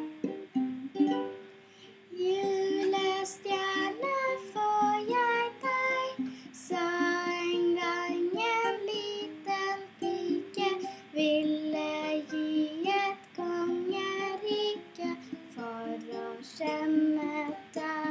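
Ukulele strummed as accompaniment, with a girl singing a Christmas song over it from about two seconds in.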